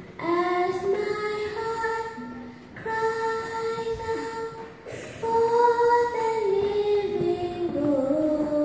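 A young girl sings a praise song solo into a microphone, in three phrases of long held notes that step up and down in pitch, with short breaths between them.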